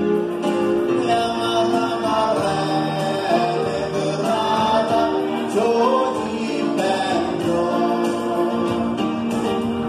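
A group of voices singing a song together, choir-style, without a break.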